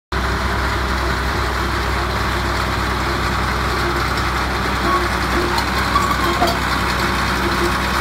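Caterpillar D7G crawler bulldozer's six-cylinder diesel engine running steadily as the machine creeps forward on its tracks, with a few light knocks about five to six and a half seconds in.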